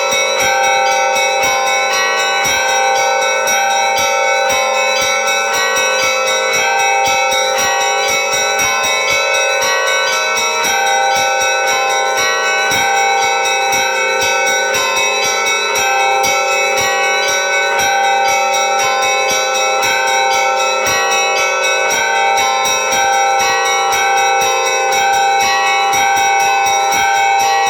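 Church bells ringing in a continuous peal: rapid strikes on several bells, their tones overlapping and ringing on without a break.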